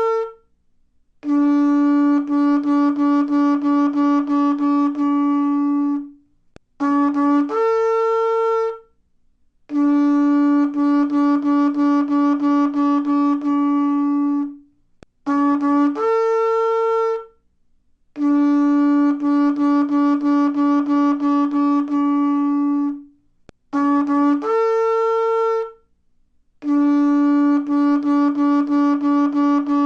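A very large shofar plays a low call again and again: a short low note that steps up to a higher one, then a long low note broken into rapid pulses. The whole call comes round about four times.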